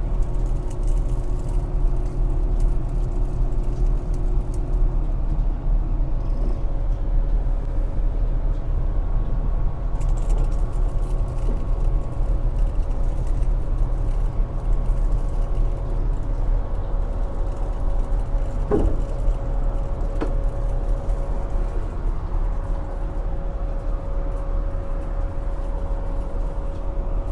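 Steady mechanical hum and low rumble of a running rooftop HVAC unit, with faint steady motor tones. A lower tone drops out about five seconds in and a higher tone starts soon after.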